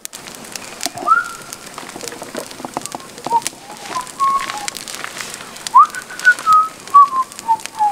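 A person whistling a short tune of held and sliding notes, ending on a falling run. Sharp crackles and snaps from the campfire come throughout.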